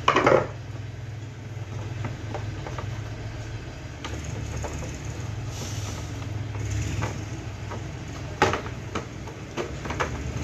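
Clicks, knocks and rustling of cable connectors being unplugged and a circuit board being pulled out of an opened LED TV's plastic casing. A steady low rumble runs underneath, and a sharp knock comes right at the start.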